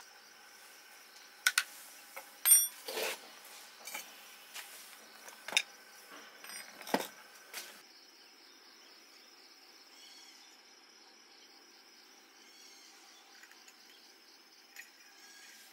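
Hard metal objects clinking and knocking several times in the first half, one strike ringing briefly. Then only a steady high chirring of insects such as crickets.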